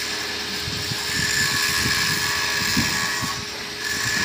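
A machine runs steadily, with a continuous high whine over a hiss.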